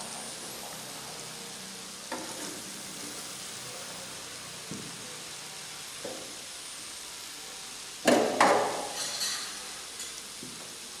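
Batter-coated peanuts deep-frying in hot oil: a steady sizzle, with a few light knocks and a louder burst of stirring about eight seconds in.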